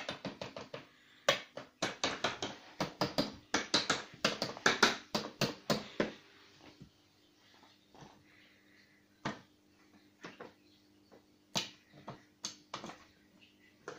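Rapid plastic clicking and tapping from a switched-off vacuum cleaner being handled, several clicks a second for about six seconds, then a few single clicks spaced out.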